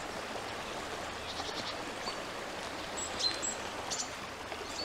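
Steady flowing stream water, an even rushing babble, with a few short high chirps over it.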